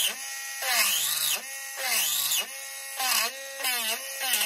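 Small handheld rotary tool with a countersink bit cutting into a wooden fingerboard deck. Its motor whine bogs down in pitch and climbs back each time the bit bites, in repeated swoops about once a second, making weird, eerie noises.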